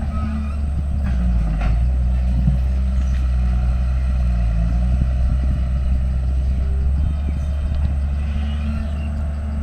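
Diesel engine of heavy earthmoving machinery running steadily at a constant low note, with a few light clanks.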